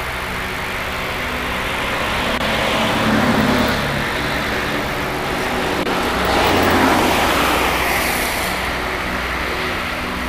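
Road vehicles going by: two swells of engine and road noise rise and fade, peaking about three and about seven seconds in, over a steady low hum.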